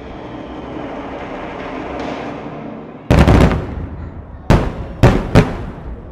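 Orchestral music fading out, then aerial firework shells bursting overhead: a rapid cluster of loud bangs about three seconds in, followed by three more sharp bangs in quick succession near the end.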